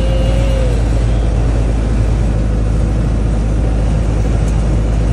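Boat engine running steadily, a low drone heard from on deck.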